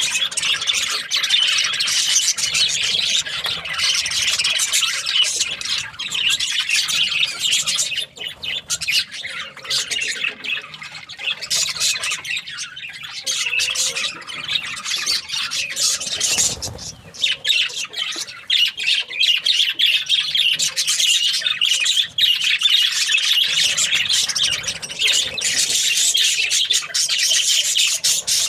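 A group of budgerigars chattering and chirping continuously in a dense, busy warble. About halfway through the chatter briefly drops away and a low thud is heard.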